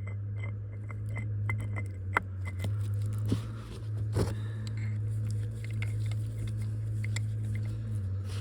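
Light metal clinks and scrapes of hand tools and steel bolts as Allen bolts are started into a hydraulic rotator motor, over a steady low hum.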